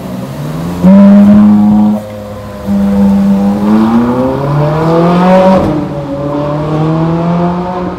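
Ferrari 458 Italia's naturally aspirated V8 accelerating away hard. It is loudest from about one to two seconds in, then the engine note climbs in steps, falling back at each upshift.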